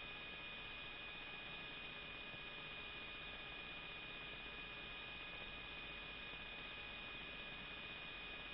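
Faint, steady hiss with a constant electrical hum and a thin high-pitched whine: the background noise of an open aircraft intercom channel.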